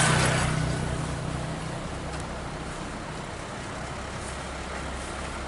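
A motorcycle passing close by, its engine fading away over the first two seconds, over the steady low rumble of idling truck engines.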